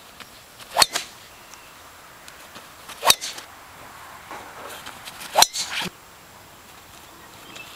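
Three sharp cracks of a golf driver striking balls off the tee, a little over two seconds apart, over a low steady background noise.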